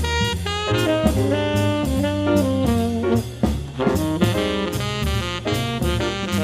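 Background jazz-style instrumental music: a melody of changing notes over a steady drum beat.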